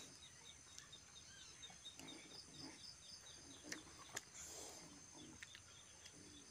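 Near silence: faint birds chirping in quick short repeated notes, with a few soft clicks and mouth sounds of eating with the hands.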